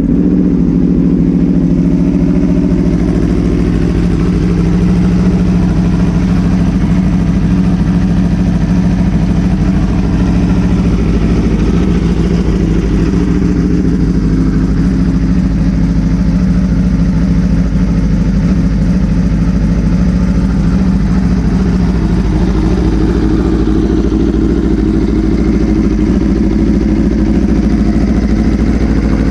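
2016 Aprilia RSV4 RR's V4 engine idling steadily just after start-up.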